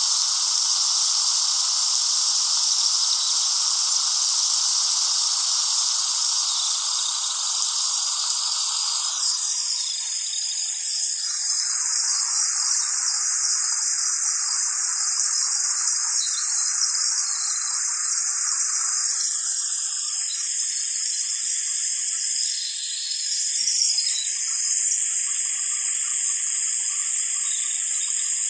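Steady hiss of light rain, thin and high-pitched with no low rumble; its tone changes abruptly several times, first about a third of the way in.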